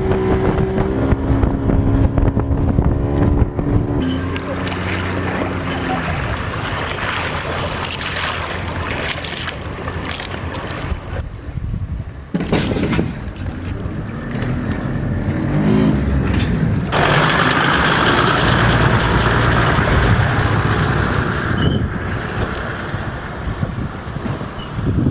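Motorboat engine running with wind and water noise, heard across several short clips that change abruptly; a steady engine drone in the first few seconds gives way to rushing noise.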